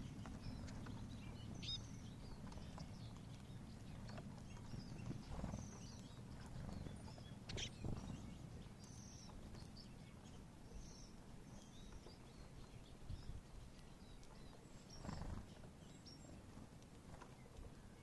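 Faint, short high calls of small songbirds, scattered through, with a few soft taps or knocks, the plainest near 8 s and 15 s, over a low steady rumble.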